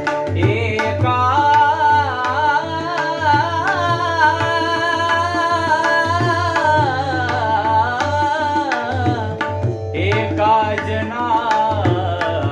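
A singer's voice holding a slow, bending melody over tabla accompaniment and a steady drone, in Indian style. The voice pauses briefly about ten seconds in while the tabla keeps playing.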